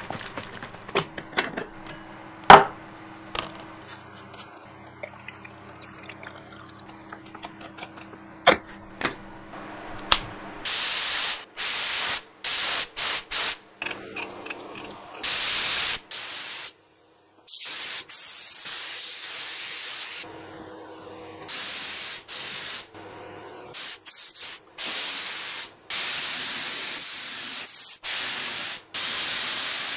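HVLP spray gun spraying finish in repeated hissing bursts, each from under a second to a few seconds long, starting about ten seconds in. Before the spraying there are a few sharp clicks and knocks.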